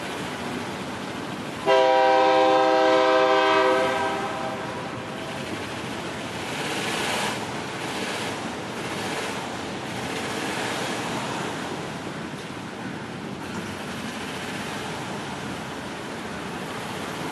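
A multi-note horn chord sounds in one blast of about two seconds, starting a couple of seconds in, over the steady rushing rumble of a slow double-stack freight train's cars rolling by.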